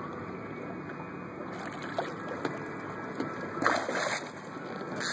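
Hooked striped bass thrashing at the water's surface beside the boat, splashing in two bursts in the last second and a half, over a steady background rush.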